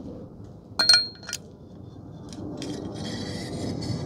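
Small metal parts of a motorcycle fork clinking together, a few sharp ringing knocks about a second in, then a steady scraping rub as the parts are handled and worked together during reassembly.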